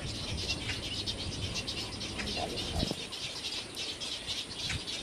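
Dense, steady chatter of many birds calling over one another, with wind rumbling on the microphone that eases about three seconds in and a short low knock just before it.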